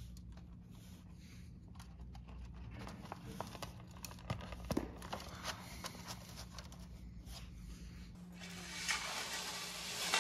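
Faint clicks and rustling of cord and thin aluminum mini-blind slats being handled while a ladder string is twisted into a slat hole and knotted, growing into a louder, steady rustle and clatter about eight seconds in as the blind is moved.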